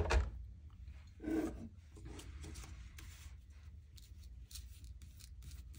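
Craft materials being handled on a tabletop: paper and small pieces rubbing and rustling, with a sharp knock at the start and a short louder rustle about a second in, then light scattered clicks.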